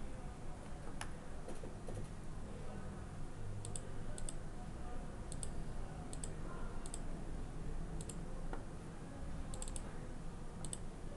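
Computer mouse clicking: scattered sharp clicks, several in quick pairs, over a steady low hum.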